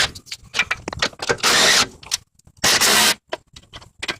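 Tool work on the bolts of a car's battery base plate: three short bursts of tool noise, each about half a second long, with scattered clicks and clatter between them.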